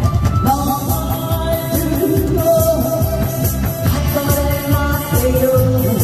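A song with a singing voice over a steady backing beat.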